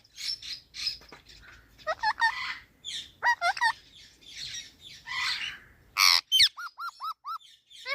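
Pet parrot squawking and chirping in a busy run of calls with bending, gliding notes. A few sharp clicks come about six seconds in, followed by five short, quick calls.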